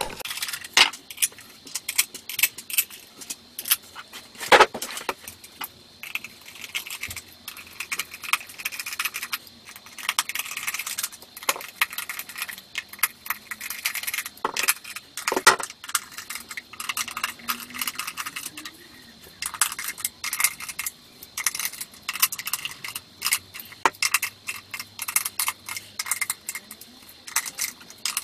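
Small screws being driven into the plastic housing of a Ford sound symposer with a socket-tipped screwdriver: an irregular run of small metallic clicks and clinks, with a couple of louder knocks.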